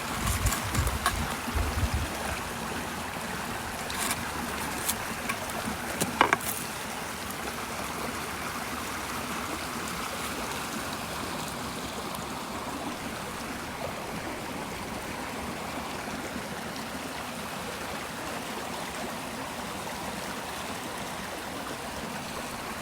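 Steady rush of flowing river water, with a few low thumps in the first two seconds and several sharp clicks between about four and six seconds in.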